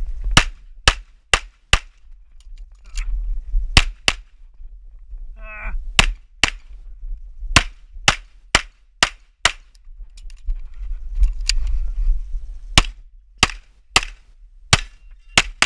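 Semi-automatic pistol fired in quick pairs, about twenty shots over the stage, with short pauses of low rumble between strings as the shooter moves between shooting positions. A brief ringing sound comes about five and a half seconds in.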